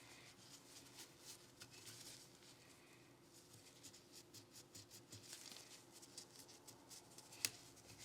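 Faint, irregular scratching, rubbing and small clicks of Glock pistol parts being handled and cleaned, with one sharp click about seven and a half seconds in.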